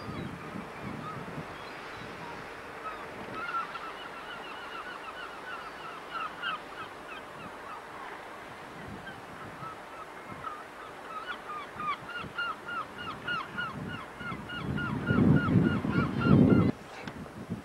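Seabirds calling over and over, short repeated calls several a second from many birds at once. Near the end, wind buffets the microphone loudly.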